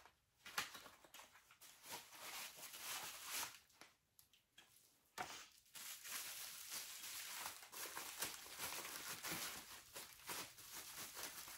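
Rustling and crinkling of packaging being handled and opened: a paper sleeve and a bubble-wrap pouch, with two short pauses, the first right at the start and the second about four seconds in.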